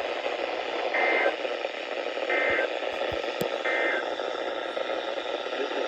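Three short Emergency Alert System end-of-message data bursts, warbling digital tones about a second and a half apart, heard over steady radio hiss; a single sharp click comes between the second and third bursts. The end-of-message bursts mark the close of the severe thunderstorm warning.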